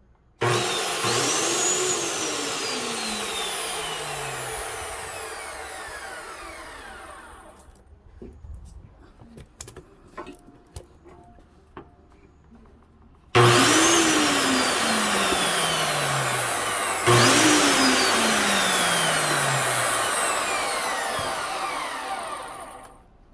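High-speed abrasive cut-off saw's brushed motor switched on three times, about half a second in, about 13 seconds in and about 17 seconds in. Each time it spins up with a quick rising whine, then winds down with a long falling whine as it coasts to a stop. These are test runs after a repair of the saw's sparking.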